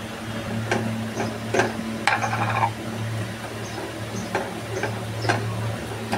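Silicone spatula stirring onion-and-spice masala in a nonstick frying pan: several irregular sharp taps against the pan and a brief scrape about two seconds in, over a steady low hum.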